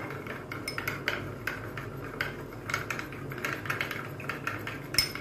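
Metal spoon stirring gelatin powder and water in a small glass bowl, clinking against the glass again and again at an uneven pace, with one louder clink near the end.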